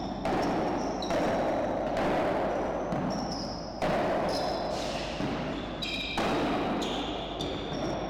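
Padel rally: the ball is struck by paddles and bounces off the court and walls, about five sharp hits one to two seconds apart, each echoing in the enclosed hall. Shoes squeak on the court surface, most clearly just before the hit about six seconds in.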